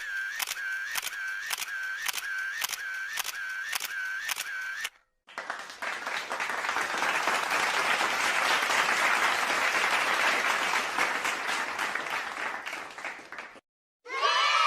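A sound-effect clip of sharp clicks repeating about twice a second, each with a short high beep, for about five seconds. It stops, and after a short gap comes a long burst of applause-like noise that swells and then fades away.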